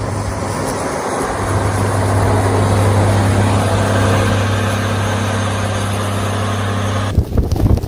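Steady motor-vehicle drone: a constant low engine hum with road noise over it. A little after seven seconds it cuts abruptly to a rougher, gusty noise.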